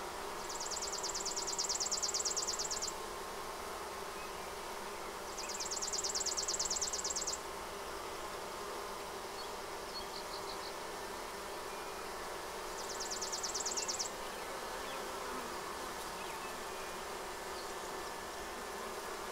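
Honey bees buzzing in a steady hum at a hive entrance, many of them fanning and scenting with their Nasonov glands after finding their queen. Three times, a rapid high-pitched pulsing trill of about two seconds sounds over the hum: near the start, about five seconds in and about thirteen seconds in.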